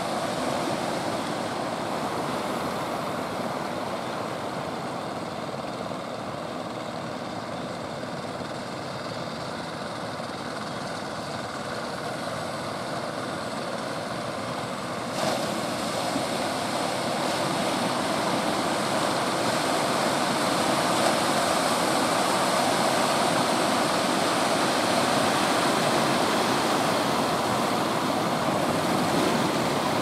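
Steady rush of surf, with the drone of an outrigger fishing boat's engine over it. It gets louder about halfway through.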